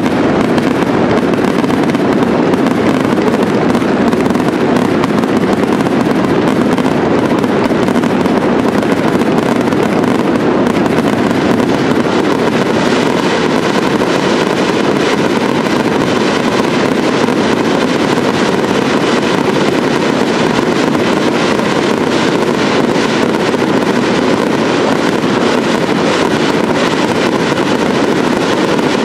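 A fireworks display going off without a break, its bursts and crackle merging into one continuous din. From about twelve seconds in a dense, fine crackling rides on top.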